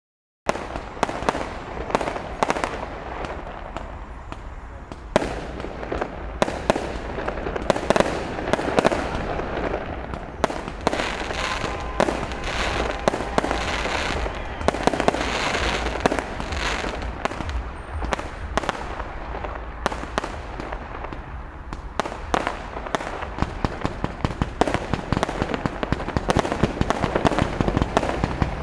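Fireworks display: many sharp bangs and crackles in quick, nearly continuous succession, thickest around the middle and again near the end.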